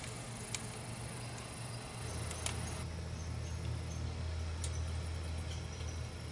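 A few sharp ticks from the hot wood stove during its first burn, three in all, over a faint low steady hum that comes in about two seconds in.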